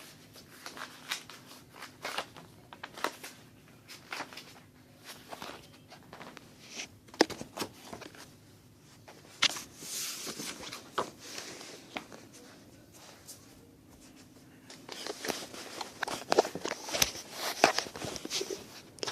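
Scattered taps, clicks and rustles of a picture book being handled and its pages turned, with a longer rustle about ten seconds in and a busier run of clicks near the end.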